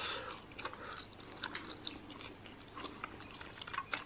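Close-miked eating of jajangmyeon (black bean sauce noodles): soft wet chewing with scattered small mouth clicks and smacks, a little louder right at the start.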